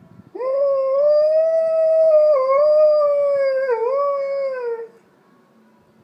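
Alaskan Malamute howling: one long howl of about four and a half seconds that starts about half a second in, wavers with two brief dips in pitch, and falls away at the end.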